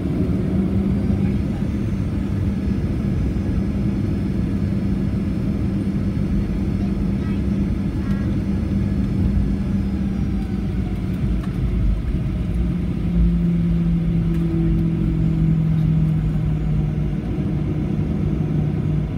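Cabin noise of a Boeing 737-800 taxiing, its CFM56-7B engines at taxi idle: a steady low rumble with a humming tone that drops a little in pitch about two-thirds of the way through.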